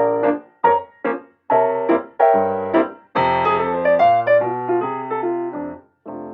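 Background piano music: a run of short struck chords, then a longer chord held and left to die away.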